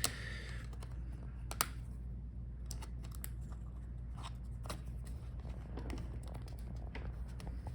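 Small plastic and metal laptop parts being handled with tools: a short scrape at the start, one sharp click about one and a half seconds in, then scattered light clicks and taps over a steady low hum.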